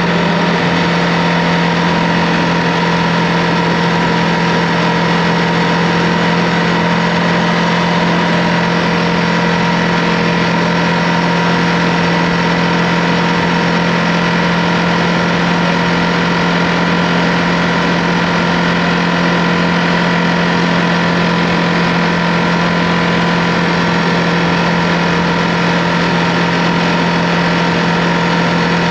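Ducati Multistrada V2S's 937 cc L-twin engine running at an unchanging, steady pitch, with an even rushing noise over it.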